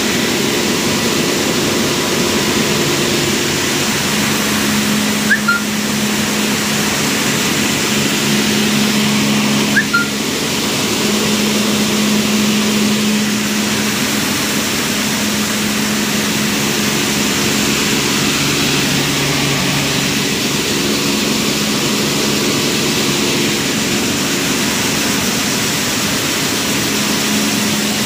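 Rice milling plant machinery running: a loud, steady mechanical rush with a low hum that fades in and out, and two brief high chirps about five and ten seconds in.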